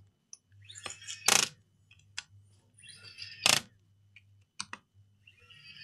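Small cordless electric screwdriver driving the laptop's heatsink screws: its motor hums and whirrs in three short runs, each ending in a sharp metallic click.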